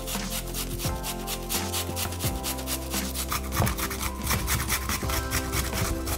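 Rubbing, rasping food-preparation sound, with irregular small knocks in the second half, over background music with a steady beat.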